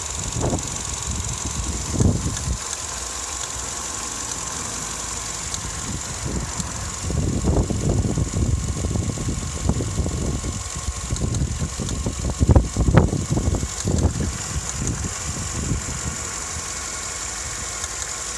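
Vauxhall Astra Mk6 engine idling roughly, with irregular low surges and shudders that come thickest through the middle stretch, over a steady high whine. The uneven idle is the fault being shown, a rough idle when warm.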